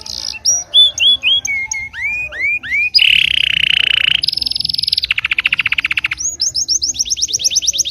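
Songbirds singing: kapas tembak and a domestic canary. First come separate whistled notes that sweep up and down, then fast buzzing trills (rolls) from about three seconds in, and a quick run of rising notes near the end.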